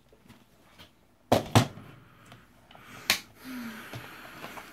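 Plastic Fiskars paper trimmer being set down and handled on a tabletop: two sharp knocks about a second and a half in, a third near three seconds, then a soft sliding rustle.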